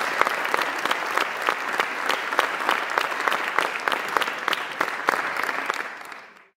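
Audience applauding, many hands clapping steadily, fading away near the end.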